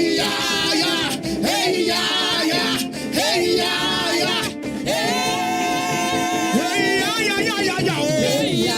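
Live upbeat church praise music: voices singing over backing instruments.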